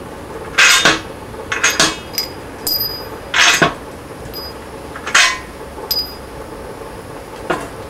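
Steel bolts clinking and knocking as they are pulled out of a cast iron wheel center bolted in a steel tractor rim and set down on a wooden bench: about nine sharp metal knocks, a few of them ringing briefly.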